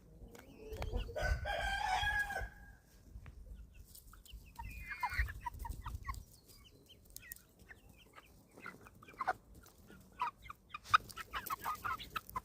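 A flock of 11-week-old chickens clucking and chirping at feeding time. There is one drawn-out call about a second in, then a run of short, quick chirps near the end.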